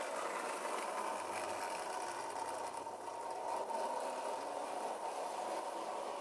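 Lionel Standard Gauge toy train passing close by: the steady whirring of its electric locomotive motor and its wheels running on three-rail metal track.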